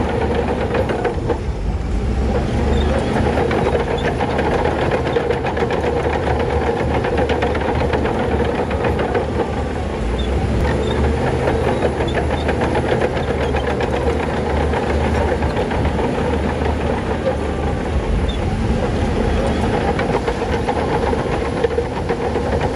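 Shantui crawler bulldozer's diesel engine running steadily under load, with a continuous quick clatter of metal over it.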